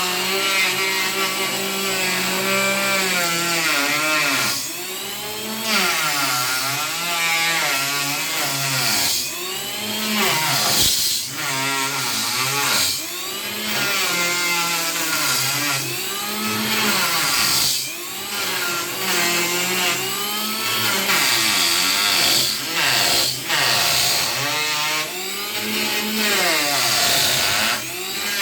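Power wood planer running and cutting, its motor pitch dipping and rising again and again as the blades bite into the wood.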